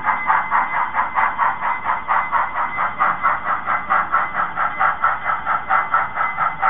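Sound-equipped HOn3 model steam locomotive chuffing steadily at about four beats a second, played through its small onboard speaker as the train runs slowly.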